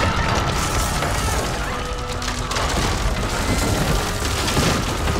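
Action-scene music over a steady rumble of booms and crashing, falling debris as a structure collapses.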